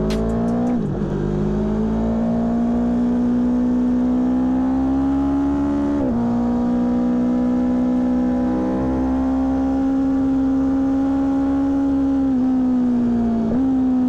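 Aprilia Tuono V4 1100 Factory's V4 engine pulling hard on track, recorded from a microphone inside the front fairing that makes it sound somewhat distorted. The engine note climbs and drops sharply twice, about a second in and at six seconds, as it is shifted up. Near the end the note sags, dips briefly and jumps back up.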